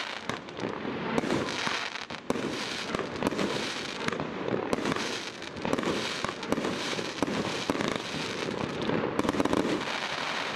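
A 49-shot multishot firework cake firing a rapid, near-continuous run of shots, its bangs and pops following one another with only momentary gaps.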